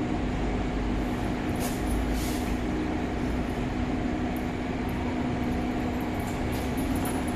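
LCD bubble-remover autoclave running, a steady hum over even mechanical noise, with a brief faint hiss about two seconds in.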